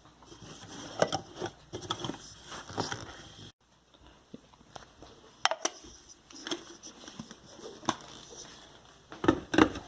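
Scattered light clicks, taps and knocks of kitchen utensils and containers being handled, with a cluster of louder knocks near the end.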